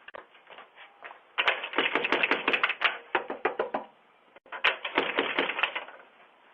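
Rapid, irregular clicking in two bursts, heard through a doorbell camera's narrow-band microphone.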